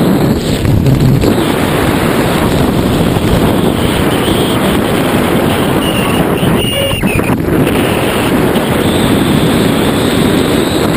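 Loud, steady rush of wind buffeting the camera's microphone as the tandem skydivers fall through the air.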